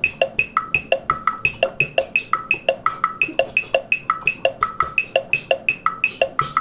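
Chrome Music Lab Rhythm percussion loop: short, clicky pitched hits on three instruments, high, middle and low, about six a second, repeating a fixed programmed pattern.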